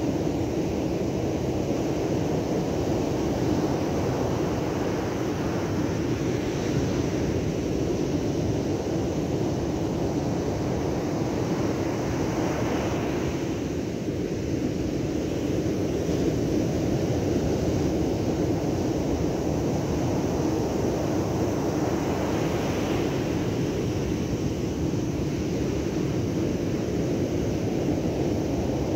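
Rough surf breaking on the beach, mixed with wind buffeting the microphone: a steady roar that swells every several seconds as waves come in.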